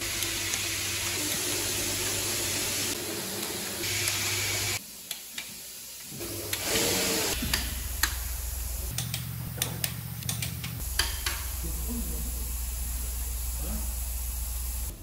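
Workshop noise of steady hiss and low hum that changes abruptly several times, with a run of sharp clicks in the middle from a long torque wrench being pulled on the cylinder heads of a Scania DC16 V8 under assembly.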